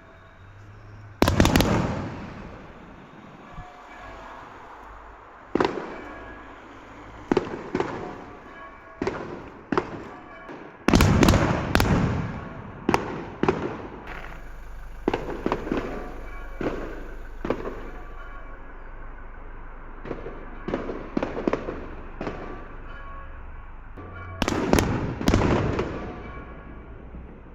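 Fireworks going off: a series of sharp bangs, each trailing off in crackle, irregularly spaced, with loud clusters about eleven seconds in and again near the end.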